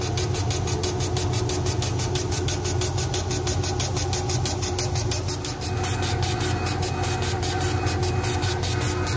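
Engraving machine running while it engraves a logo into a wooden board: a steady low hum with a fast, even pulsing over it.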